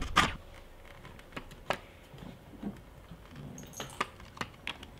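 Scattered light clicks and taps from a clear plastic snowmobile handguard shell being handled and pressed by hand.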